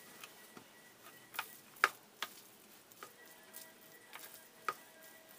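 White plastic rice paddle knocking and scraping against a stainless steel tray while sushi rice is mixed and turned: several sharp clicks at irregular intervals, the loudest just under two seconds in.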